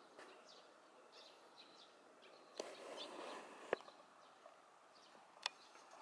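Faint outdoor ambience with small birds chirping in short, scattered calls, and three sharp clicks, the loudest about three and a half seconds in and again near the end.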